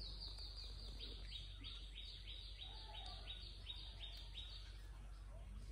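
A bird calling a rapid series of short, high notes that each slide downward, about three a second, stopping about four and a half seconds in, over a steady low background hum.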